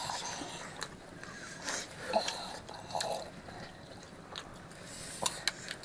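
Quiet eating sounds: chewing, with a few small clicks and taps scattered through.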